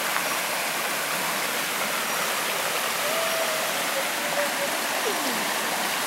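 Steady rush of water from the Pa La U waterfall's stream flowing over rocks into its pools.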